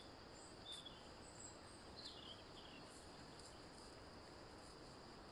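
Near silence: a faint steady high hiss, with a few faint high chirps and ticks.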